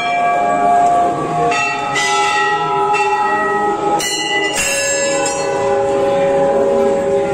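Hanging brass temple bell struck three times: about a second and a half in, at four seconds and again half a second later. Each strike rings on and overlaps the one before.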